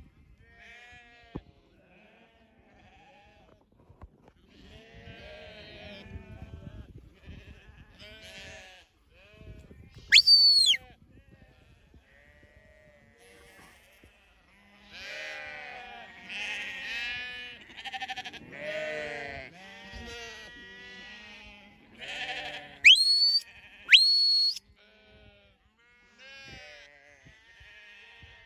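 A large mob of sheep bleating, many calls overlapping and thickest in the second half. Loud, clear high whistles cut through about ten seconds in and twice in quick succession near the end, each gliding down as it stops: a handler's whistle commands to a working sheepdog.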